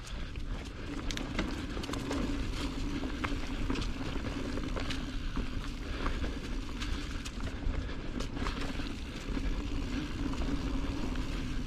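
Mountain bike rolling along a dirt singletrack, heard from a bike-mounted action camera: knobby tyres on the trail with a steady hum, scattered sharp clicks and rattles from the chain and frame over rocks, and wind rumble on the microphone.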